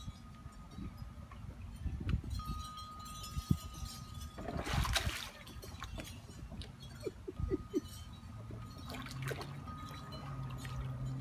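Swimming-pool water splashing and lapping as a husky puppy paddles and climbs at the pool step, with one louder splash about five seconds in.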